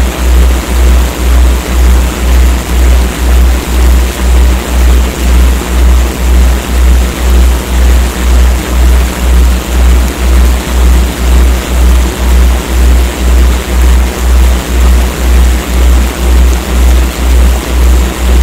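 Electronic morphic-field audio: a loud, deep hum pulsing about twice a second over a steady hiss of noise.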